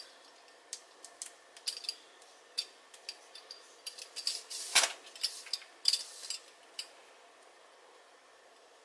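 Irregular light clicks and clinks from stitching metal handle rings onto a handbag, with the loudest clink a little before the middle, then quiet.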